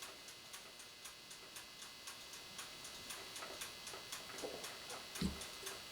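Faint, rapid mechanical ticking, about four ticks a second, with a single soft low thump about five seconds in.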